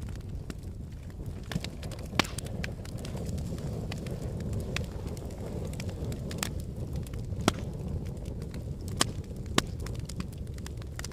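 Volcanic eruption: a steady low rumble with scattered sharp cracks and pops, the loudest about two seconds in and three more late on.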